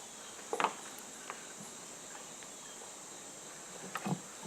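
Quiet background with a steady high-pitched hiss, broken by a couple of brief knocks, one about half a second in and one near the end.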